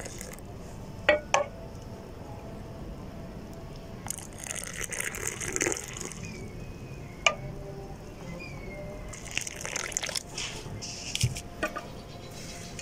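Hot milky pink tea poured in a thin stream from a saucepan into a glass cup, splashing and frothing as the cup fills, with a few sharp clicks.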